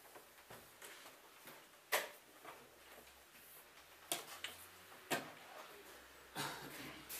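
Wooden chess pieces being set down on the board and chess clock buttons pressed: a handful of short, sharp clicks and knocks a second or so apart, with a quick pair about four seconds in.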